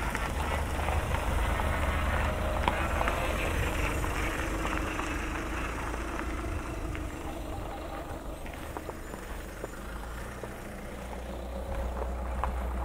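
A motor vehicle's engine running with a low steady rumble, louder in the first few seconds and again near the end.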